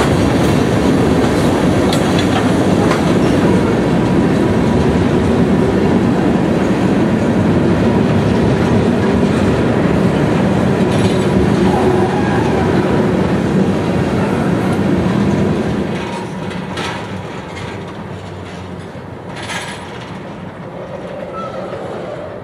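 Freight train of tank cars rolling past, steel wheels clicking over the rail joints with a light wheel squeal. About two-thirds of the way through the sound drops off as the last cars go by, leaving a couple of clanks.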